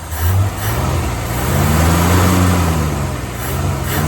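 1955 Ford Thunderbird's Y-block V8 is revved once, its pitch climbing to a peak around the middle and falling back to idle, with small blips near the end. It is running pretty decent with its carburetor freshly readjusted.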